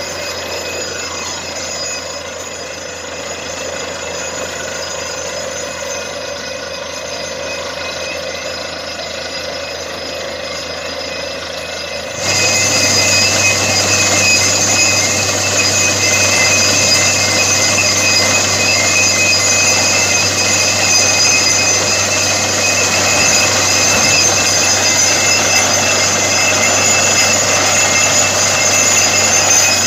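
Borewell drilling rig running steadily while the bore, which has struck water, pushes muddy water up and out. The machine noise steps up suddenly about twelve seconds in and stays louder.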